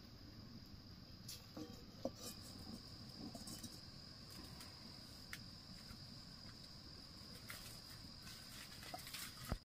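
Insects trilling steadily on one high thin note, with a few faint knocks and rustles; the sound cuts off abruptly near the end.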